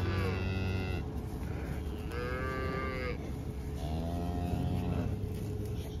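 Cattle mooing: three drawn-out calls of about a second each, the last one lower in pitch, over a steady low rumble.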